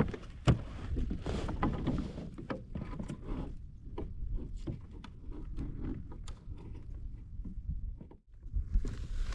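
Irregular knocks, clunks and rattles of gear being handled on a plastic fishing kayak, as a landing net snagged on the paddle is worked free.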